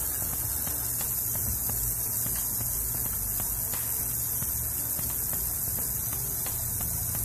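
Water running from a garden hose spray nozzle onto a wooden deck, a steady hiss, with a low steady hum underneath.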